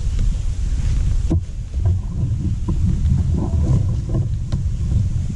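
Wind buffeting the camera microphone, a steady low rumble, with a few sharp clicks and light rustling from handling the fishing pole.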